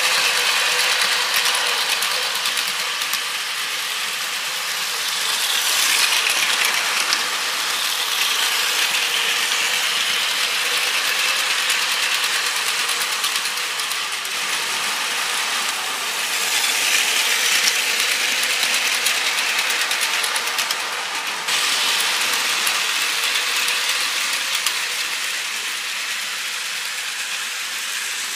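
Plarail battery-powered toy Shinkansen trains running on plastic track: a continuous high-pitched whir of the small motor and plastic gearbox with wheel clatter. It swells louder and fades again several times as the trains pass by.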